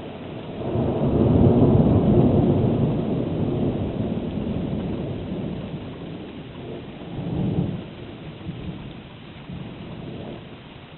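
Thunder rolling: a long low rumble that builds about a second in and slowly fades, with a second, shorter swell around seven seconds in before it dies away.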